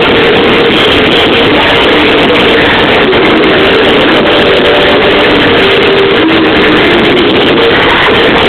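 Live pop-punk band playing loud through a venue PA, with a woman singing lead over electric guitars, heard from the crowd.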